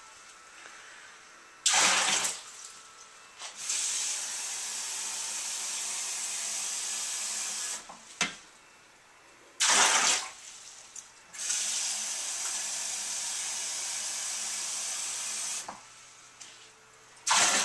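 Kitchen tap running through a faucet-mounted water filter into a glass measuring cup, in two steady fills of about four seconds each. Between the fills come three short, louder gushes of water.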